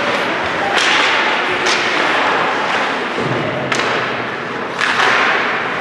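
Four sharp knocks from the game in play, over a steady background noise of the venue.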